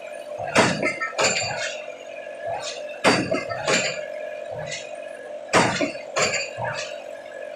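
Pile hammer striking the head of a precast PHC spun concrete pile. It gives heavy clanking impacts in pairs, a pair about every two and a half seconds, with fainter knocks between them, over a steady machine hum.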